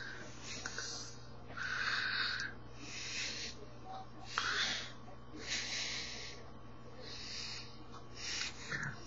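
A man's breathy mouth noises: a string of about seven short, unvoiced puffs and hisses of air, made while he signs.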